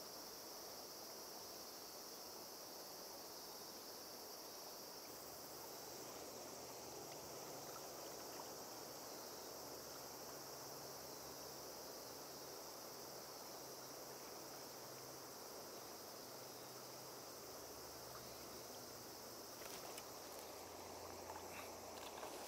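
Steady rush of a wide river's current, with insects singing in a steady high pitch over it. A few faint clicks come near the end.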